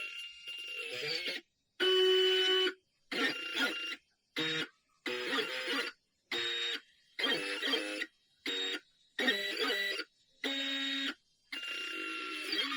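Stepper motors of a CNC pen plotter whining through a run of short moves. Each move gives a steady pitched whine lasting under a second, starting and stopping abruptly, with the pitch changing from one move to the next.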